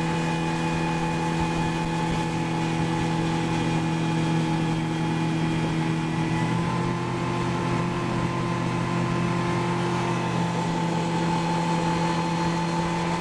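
Tow boat's engine running steadily at towing speed, with the rush of water and wind. The engine note shifts to a slightly different pitch about six seconds in.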